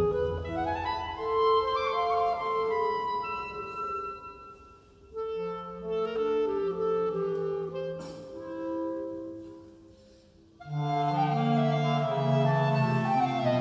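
Clarinet ensemble playing classical music in held, sustained phrases. The music breaks off into two short pauses, about five and about ten seconds in, then comes back in fuller.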